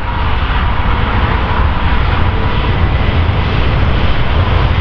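Airbus A350-900 jet airliner's twin Rolls-Royce Trent XWB turbofans at takeoff thrust during its takeoff run: a steady, loud jet noise with a deep rumble under a wide hiss.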